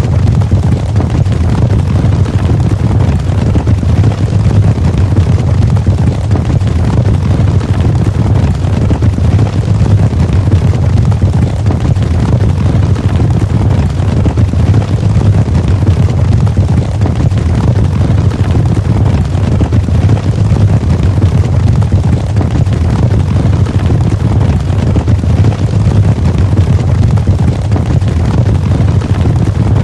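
Cavalry charge: the massed hoofbeats of many galloping horses blending into one continuous, loud rumble of overlapping thuds.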